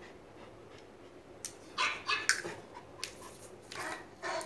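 A dog barking: a run of short, separate barks starting about a second and a half in.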